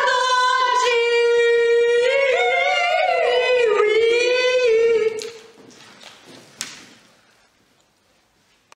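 A woman singing one long held note into a handheld microphone, steady at first and then wavering in pitch, for about five seconds before it stops. A few faint clicks follow.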